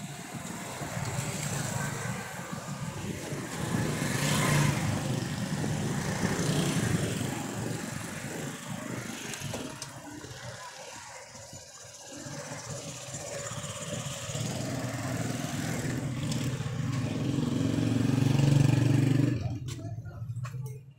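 A motor engine running, with a low rumble that swells louder twice and cuts off suddenly near the end.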